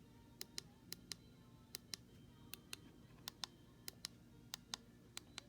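Buttons on a weather-alert radio being pressed over and over: light clicks, mostly in pairs, about one pair every two-thirds of a second, over a faint steady hum.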